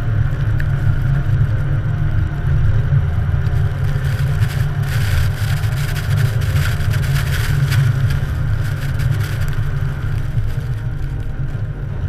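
Steady low rumble of a plow truck's LML Duramax 6.6-litre V8 turbodiesel driving through deep snow, picked up by a microphone mounted outside on the plow. From about four and a half seconds in until about ten seconds, a hiss of snow being pushed and sprayed by the plow blade rides over it.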